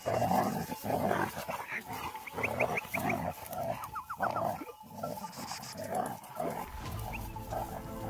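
Grey wolves snarling and growling in a run of irregular, harsh bursts, with a few quick high yelps around the middle.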